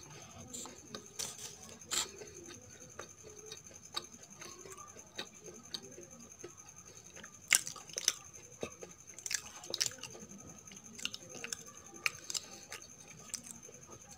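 A person chewing soft Indian sweets with her mouth closed: irregular wet mouth clicks and smacks, the loudest a little past halfway. A faint steady high whine sits underneath.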